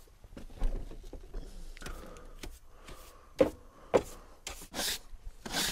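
Small hand brush sweeping out the camper van's floor: a few quick brushing strokes and light knocks, mostly in the second half.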